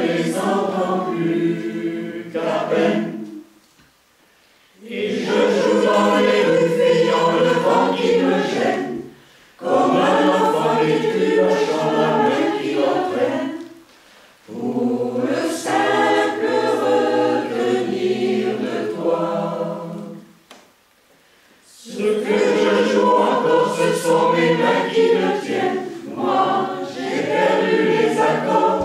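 Mixed choir of men's and women's voices singing together in long phrases, with brief pauses between them.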